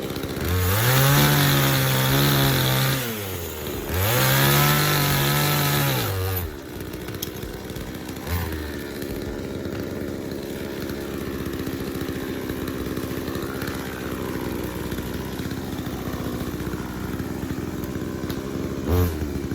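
Blue Max chainsaw revved up twice, each time for two to three seconds with the pitch rising, holding and falling, then running on at idle.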